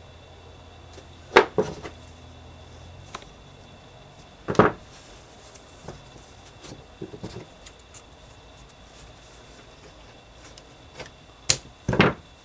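Quiet handling of craft tools on a tabletop: a few sharp clicks and knocks about a second and a half in and again around four and a half seconds, then two sharp snips near the end as scissors cut through the paracord.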